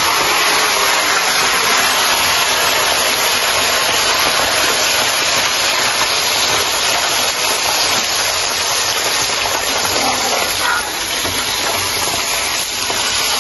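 Fish frying in a pan of hot oil: a loud, steady sizzle.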